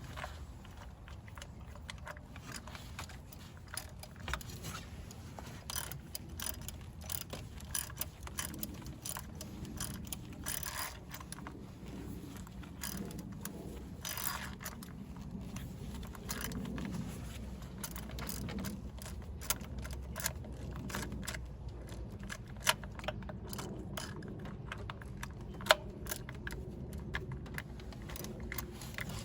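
Hand ratchet clicking in short runs as bolts are snugged down a little at a time, with metal tools clinking.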